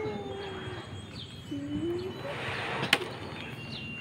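A sharp plastic click about three seconds in, just after a brief rustle, as a plastic toy animal cage is handled. Short falling bird chirps come and go in the background.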